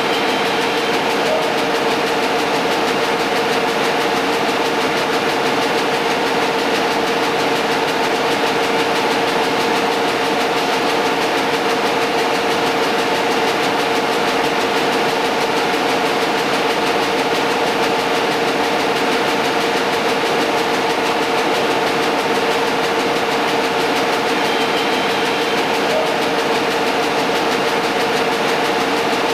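A steady, unchanging drone holding two fixed tones over an even hiss, with no breaks or changes in level.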